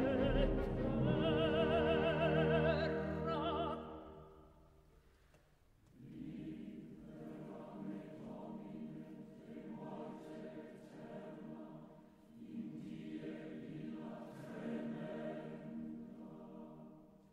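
Background classical vocal music. A singer with wide vibrato fades out about four seconds in. After a short pause, softer choral singing in long held chords follows.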